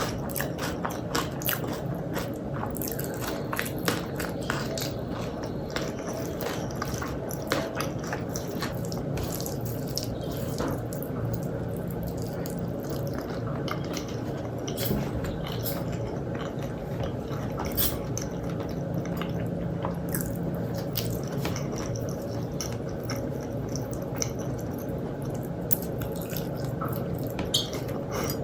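Close-miked eating: wet chewing and smacking mouth sounds, with many short sharp clicks scattered throughout.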